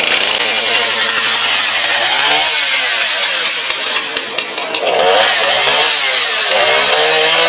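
Husqvarna two-stroke chainsaw running hard, its engine pitch dipping and rising several times.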